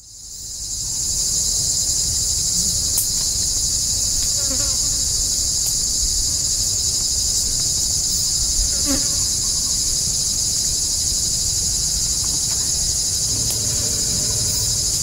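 A loud, steady, high-pitched shrilling chorus of forest insects, fading in over the first second and holding without a break.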